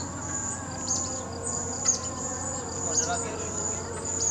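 Insects keep up a steady high-pitched buzz at dusk. Short, sharp chirps repeat over it about once a second.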